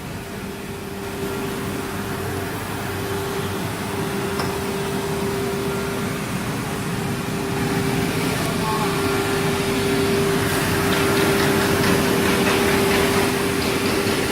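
CNC wood router running, its spindle holding a steady whine under a rough cutting noise that grows louder through the second half.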